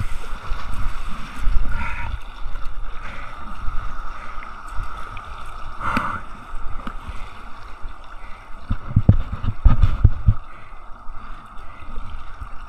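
Kayak in breaking surf: water sloshing and slapping against the hull, with wind rumbling on the microphone. A cluster of heavy low thumps comes about nine seconds in.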